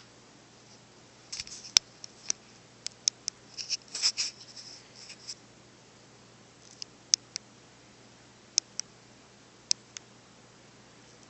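Cats scuffling on a hard surface: claws click and scrape in two short flurries in the first half, then single sharp clicks every second or so. No hissing or yowling.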